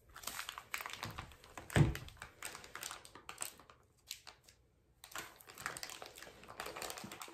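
Plastic packaging and a plastic tub being handled: irregular rustling and light clicks, with one loud thump a little under two seconds in. The handling stops briefly around the middle, then starts again.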